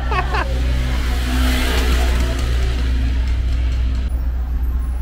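A motorcycle passing close by on a cobblestone street: its engine swells, is loudest about two seconds in, and fades away.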